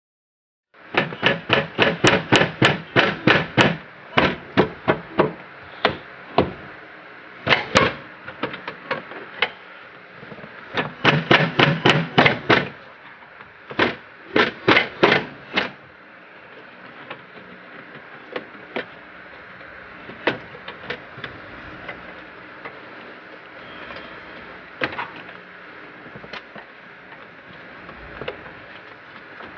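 Plastic interior trim panels and their clips in a car's rear cabin being pried and pushed, making several quick bursts of sharp knocks and thumps, then only scattered clicks.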